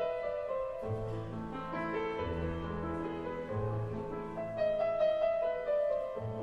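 Intro background music led by piano, with a bass line coming in about a second in.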